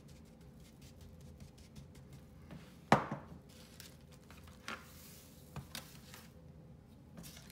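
Hands patting and rubbing a dry seasoning rub onto raw beef chuck roasts on an aluminium sheet pan: soft pats and rustles, one loud sharp knock about three seconds in, then a couple of lighter knocks as a roast is turned over.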